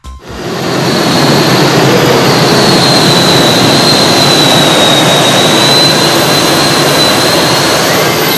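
A loud, steady engine noise with a high whine that wavers slightly in pitch, building up over the first second.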